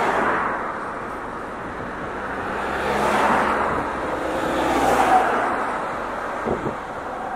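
Steady rushing outdoor noise of wind and sea, swelling about three seconds in and again near five seconds, with a small boat's outboard motor running offshore.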